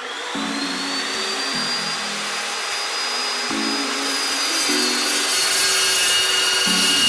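Evolution S355CPSL 14-inch carbide-tipped metal-cutting chop saw started up, its whine climbing over the first two seconds and then holding steady. The noise grows slowly louder toward the end as the saw is set to cut steel box tubing.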